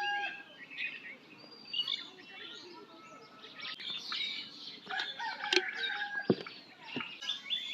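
Birds chirping and calling, many short sliding chirps, with a few sharp knocks in the second half.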